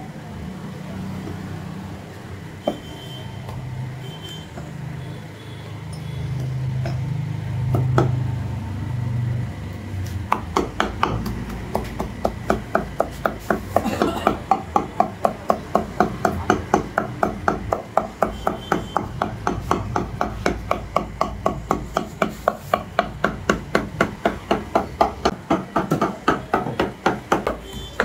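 Heavy butcher's cleaver chopping mutton into keema on a wooden log chopping block. At first there is only a low rumble and a few single knocks. From about ten seconds in come steady, rapid chops, about three or four a second.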